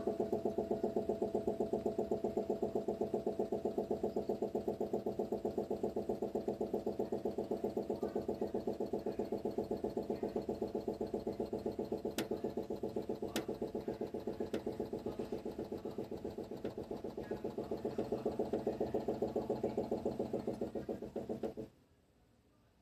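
Storage water heater making an abnormal noise: a steady humming drone that pulses rapidly and evenly, with two sharp clicks about halfway through. It cuts off suddenly near the end.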